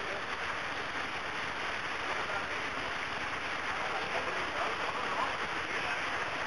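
Canyon stream water rushing and splashing over rocks and a small cascade, a steady hiss.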